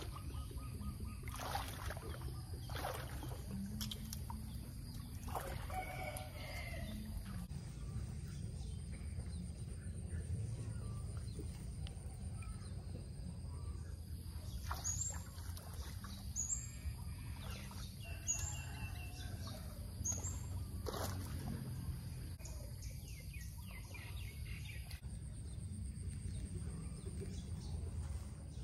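Outdoor rural ambience: a steady low rumble under scattered bird calls, including a run of four short, high chirps a second or two apart about halfway through, with a few faint knocks early on.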